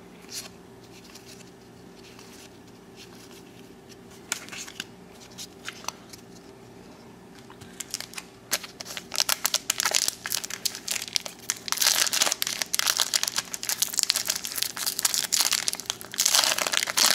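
Quiet handling of a stack of baseball cards with a few light clicks. Then, from about eight seconds in, the foil wrapper of a 1993 Donruss trading-card pack crinkles and tears loudly and continuously as it is pulled open by hand.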